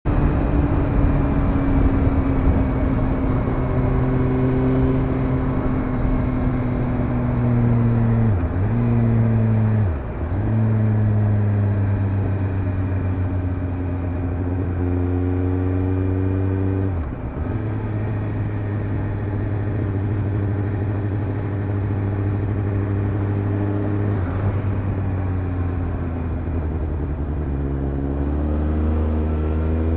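Suzuki GSR750's inline-four engine running through a Fuel stainless slip-on exhaust with its dB-killer in, heard from on the moving bike. The engine note is steady, with brief sharp dips about 8, 10 and 17 seconds in, and it rises steadily near the end as the bike accelerates.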